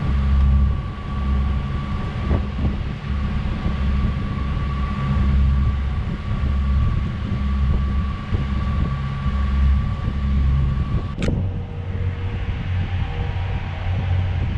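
Sailing yacht's inboard engine running steadily under way, a low pulsing drone with a thin steady whine above it. A sharp click about eleven seconds in, after which the drone carries on in a slightly different tone.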